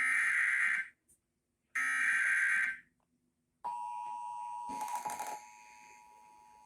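Emergency Alert System SAME header: two roughly one-second bursts of harsh, buzzing digital data tones, the encoded start of a new alert. About a second after the second burst the steady two-tone EAS attention signal begins, with a brief crackle over it, then drops much quieter about two seconds later.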